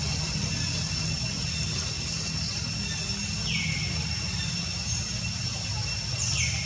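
Steady low rumble with a constant thin high whine, and two short chirps falling in pitch, one about halfway through and one near the end.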